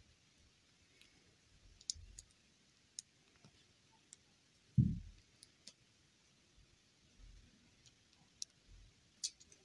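Sparse light clicks of small segments of a toy chain being handled and pulled apart by fingers, with one dull thump a little before five seconds in.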